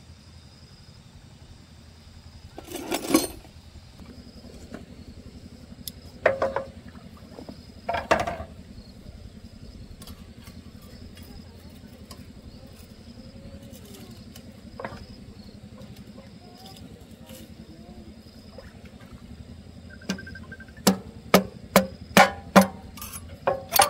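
Hammer blows on a small single-cylinder diesel engine being repaired, not running: a few separate metal knocks and clanks early on, then a quick run of sharp strikes, about two a second, near the end.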